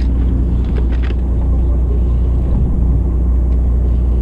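Fishing boat's engine running steadily with a low rumble, with a few faint clicks of handling about a second in.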